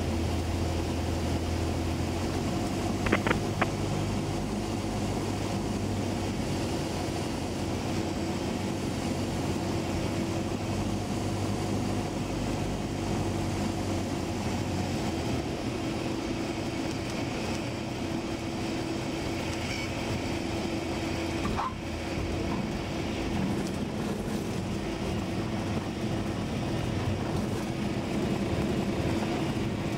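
Steady drone of a light aircraft's piston engine and propeller heard from inside the cockpit, with a few short clicks about three seconds in.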